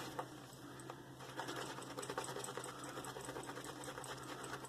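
Shaving brush whisking Derby shave soap lather in a lathering bowl: faint, quick, even swishing strokes, about five a second, as the lather builds up.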